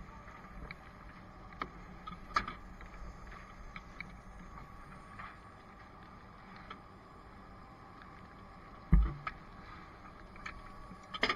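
Fire engine running steadily at the scene, a low rumble under scattered light clicks and knocks of equipment being handled at a hose compartment. A single dull thump about nine seconds in.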